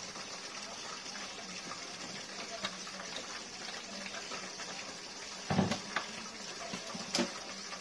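Steady background hiss, with a dull knock about five and a half seconds in and a lighter click near the end, as a seasoning bottle is handled on a kitchen countertop.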